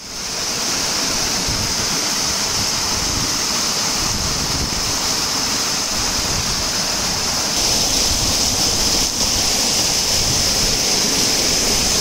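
Waterfall rushing: a steady, even hiss of falling water, slightly louder in the last few seconds.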